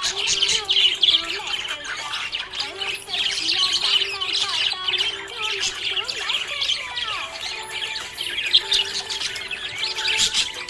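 Budgerigar chirping and chattering without a break: a dense run of quick, high chirps and warbling squawks.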